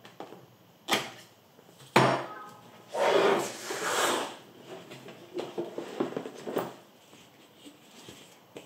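A cardboard laptop box being handled and opened: two sharp knocks about a second apart, then a longer stretch of cardboard scraping and sliding as the box lid is worked loose and lifted, followed by lighter taps and rustling.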